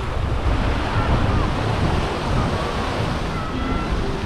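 Wind buffeting the microphone over the steady wash of sea water.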